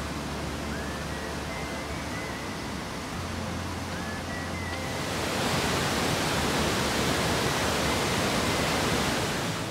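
Rapids of a fast mountain river, white water rushing over boulders with a steady roar of water. It grows louder about halfway through.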